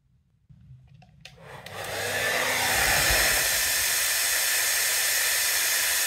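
Hair dryer switched on with a click about a second in, its airflow building over about a second to a steady, loud rush of air.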